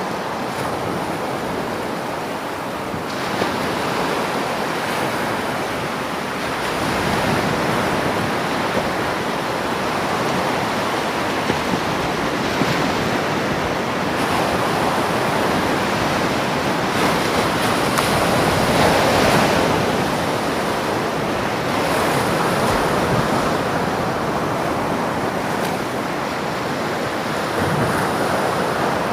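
Ocean surf: a continuous rush of breaking waves that swells and eases slowly over several seconds.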